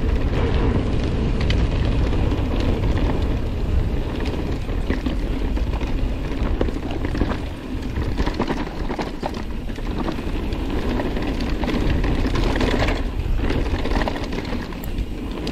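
YT Capra mountain bike descending a dirt trail at speed: steady wind buffeting on the camera microphone over the hum of knobby tyres on dirt, with frequent clicks and rattles from the chain and frame as it runs over brake bumps.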